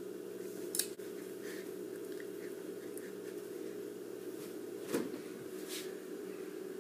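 Refrigerator door pulled open about five seconds in, a single short thump over a steady low hum in the kitchen, with a faint click about a second in.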